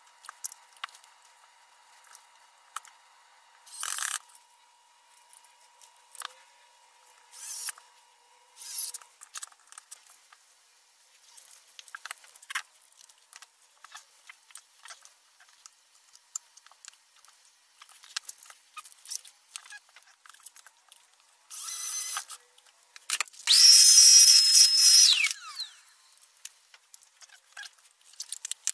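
Small electric drill boring holes through a thin wooden box lid, in sped-up footage: scattered handling clicks and taps, a few short bursts of the drill, then about two seconds of drilling with a steady high whine that falls away as the motor spins down.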